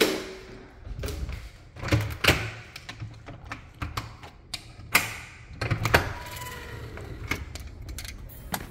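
Door hardware clicking and knocking as a back door and then a glass storm door with a lever handle are unlatched and pushed open: a string of sharp clicks and thumps, the loudest about two and five seconds in.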